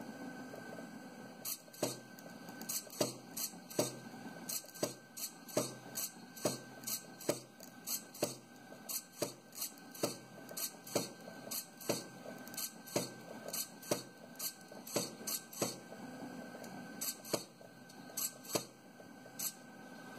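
Eggbot egg-drawing plotter running as it draws on an egg with a pen: a faint steady motor whine, with sharp clicks about twice a second from shortly after the start until near the end.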